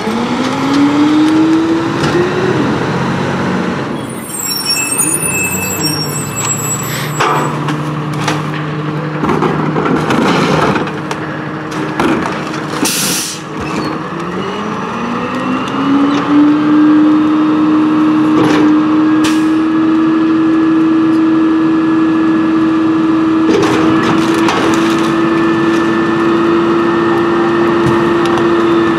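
Hino rear-loader garbage truck's diesel engine running and twice speeding up to a steady higher pitch as the hydraulic packer cycles. Knocks and bangs of carts and bags are heard, and there is a short hiss of air about halfway through.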